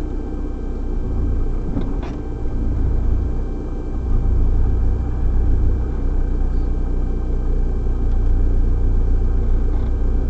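Steady low rumble of a car, engine and road noise as heard inside the cabin.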